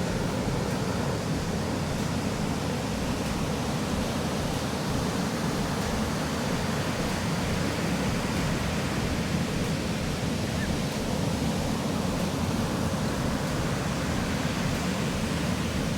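Steady rush of ocean surf mixed with wind noise, even in level throughout.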